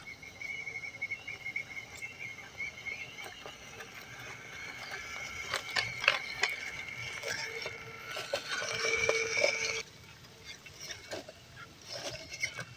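Drivetrain of an MN99s RC scale crawler, its 260-size electric motor and gears whining steadily as it drives over dry leaves and twigs, with crackling and ticking from the tyres. The whine grows louder as the truck approaches, then cuts off suddenly near the end, leaving only scattered ticks.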